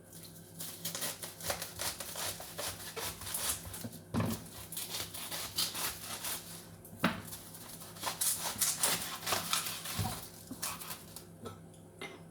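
A knife cutting a piece off a head of cabbage: a long run of crisp crunching and crackling, with a few louder knocks.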